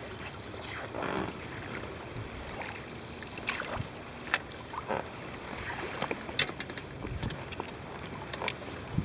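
Steady wind and water noise around a float tube, with scattered light clicks and knocks from fishing tackle being handled, the sharpest a little past four seconds and again past six seconds.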